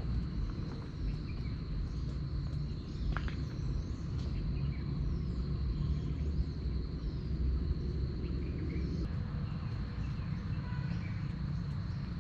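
Steady high-pitched insect drone of crickets or cicadas, with a low rumble underneath and a few faint short chirps.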